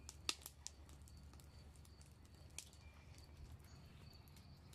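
Near silence with a few faint crackles from the wood fire burning in a kettle grill, over a faint high chirp repeating at even spacing.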